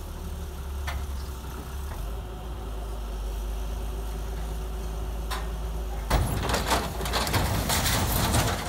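Diesel engine of a wheeled excavator running steadily as it hauls an overturned truck upright. About six seconds in, a loud burst of crunching and clattering as the truck rolls back onto its wheels onto dry cane trash.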